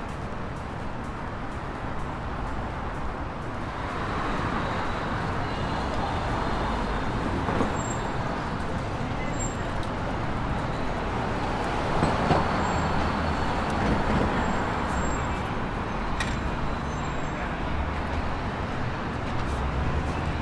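Steady road traffic noise of cars passing on a busy city street, growing a little louder about four seconds in.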